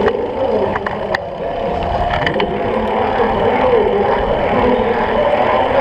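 Wind buffeting the microphone of a camera riding on a moving folding bicycle, a dense rumbling rush. Voices call out over it, and a few sharp clicks come in the first half.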